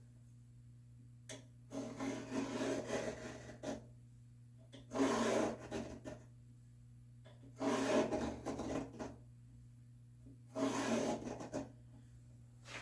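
Four rasping strokes drawn across walnut boards, each one to two seconds long, with pauses between them.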